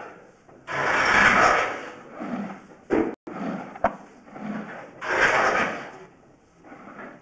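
Drain inspection camera's push-rod cable being pulled back through the sewer pipe in strokes, sliding and scraping. There are several rubbing swells, the longest about a second in and another near the five-second mark, with a couple of sharp clicks between them.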